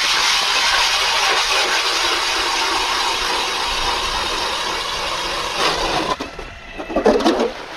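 Power ice auger drilling a hole through lake ice: a steady grinding whir of the blades cutting into the ice, which stops abruptly about six seconds in. A short scraping burst follows about a second later.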